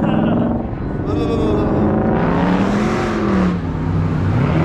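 Car engine revving, its pitch rising and falling, with a loud rushing noise for about a second and a half from around two seconds in.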